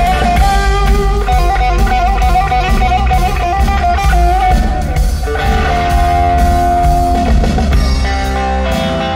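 Live rock band playing: guitars and bass over a drum kit, with a wavering melody line for the first half that gives way to longer held notes.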